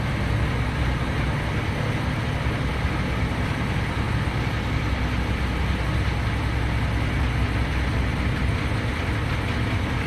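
Boat engine idling: a steady low hum that does not change.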